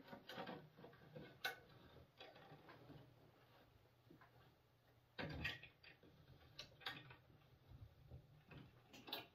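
Near silence broken by a few faint, scattered clicks and taps from hands fitting a felt strip onto the rim of a metal tractor final-drive backer plate.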